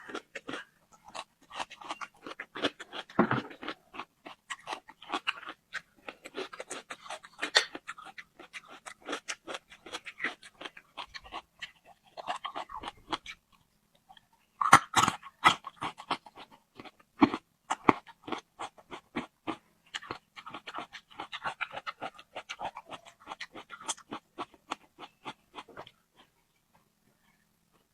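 Close-miked eating: chewing and crunching with many quick wet mouth clicks, irregular and continuous, stopping about two seconds before the end.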